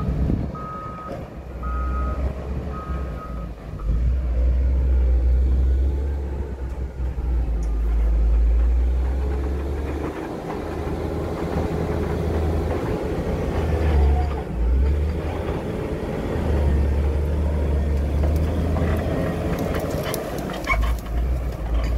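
Caterpillar 140M motor grader's diesel engine running and working under load, rising and falling. Its reversing alarm beeps steadily for the first few seconds, then stops.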